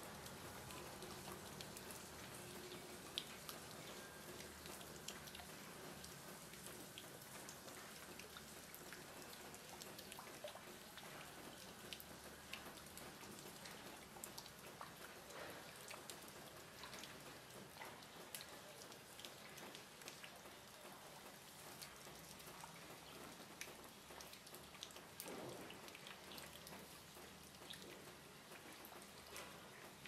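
Faint patter of water drops falling: single drops ticking irregularly over a soft, steady hiss of light rain.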